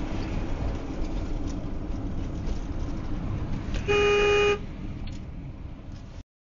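Steady road and engine rumble heard from inside a moving vehicle's cab, with one loud honk of a car horn, about half a second long, around four seconds in, as a car cuts in ahead. The sound cuts off shortly before the end.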